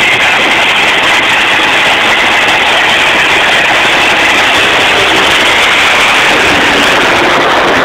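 Drag racing car engines at the starting line, running loudly and steadily.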